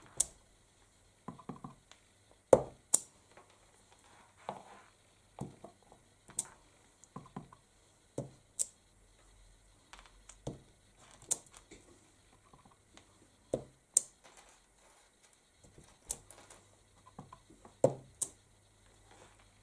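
A clear acrylic stamp block pressed onto paper, lifted and set down on the craft desk: scattered light taps and clicks at irregular intervals, the loudest about two and a half seconds in.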